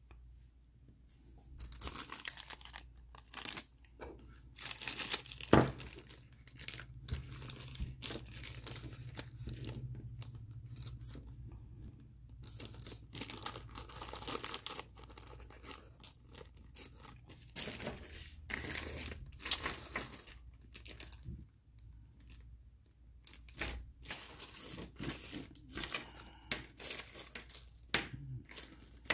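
Plastic packaging crinkling and being torn open by hand, in irregular bursts with short pauses.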